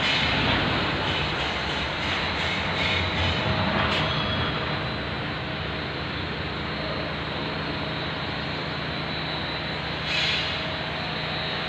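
Steady mechanical noise of machinery running, a dense rushing sound with a faint hum under it, a little louder in the first few seconds and swelling briefly about ten seconds in.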